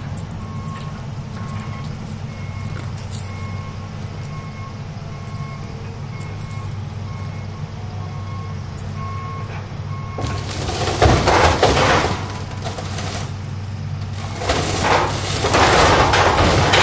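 Excavator's diesel engine running with a steady low drone while its alarm beeps about one and a half times a second. The beeping stops about ten seconds in, and two stretches of loud crunching and crashing follow as the excavator breaks into the fibreglass water slide.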